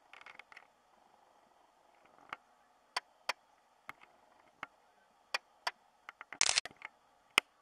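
Irregular sharp clicks and taps, about a dozen, with a louder cluster of knocks and rustling a little after six seconds in, over a faint background hiss: handling noise on a handheld camera as it is zoomed and steadied.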